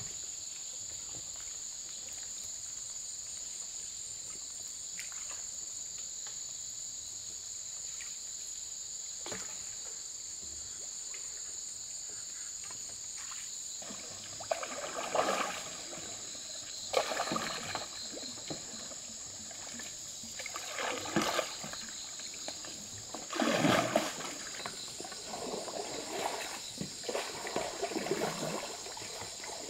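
Steady high-pitched insect chorus. From about halfway through, irregular splashes and sloshes of water come a few seconds apart as a bamboo raft is poled along through muddy stream water.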